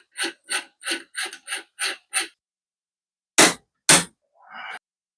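Small hammer tapping a punch to drive a pin while installing an AR-15 gas tube: quick even taps about three a second, then two hard blows after a pause.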